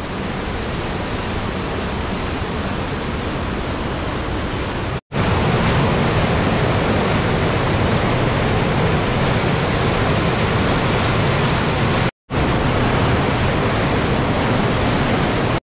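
Waterfall rushing steadily, heard as three separate takes that cut off abruptly about five seconds in and again about twelve seconds in, the later takes a little louder.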